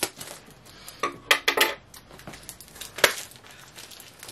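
Scissors cutting at packing tape on a cardboard box: a few sharp metallic snips and clicks, with a quick run of four about a second and a half in and a single loud one about three seconds in.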